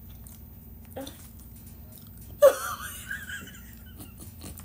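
A person's sudden strained, wheezing vocal outburst about two and a half seconds in, lasting about a second and a half, muffled behind a hand over the mouth: a reaction to a bad-tasting snack in the mouth.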